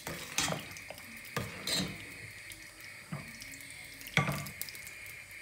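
Ladle stirring tarhana soup in a stainless steel pot: the liquid sloshes and swishes in about five uneven strokes.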